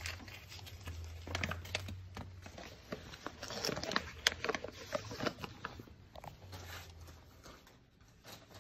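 A toy figure's packaging being opened by hand: scattered rustles and sharp clicks, thinning out near the end.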